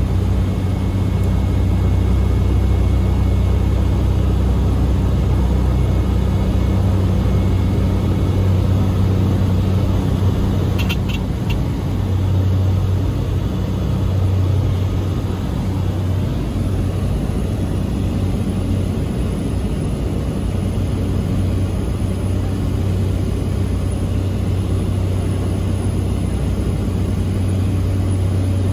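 Cabin noise of a Cessna 208B Grand Caravan in its climb after takeoff: the single turboprop engine and propeller give a loud, steady low drone. A brief faint click comes about eleven seconds in.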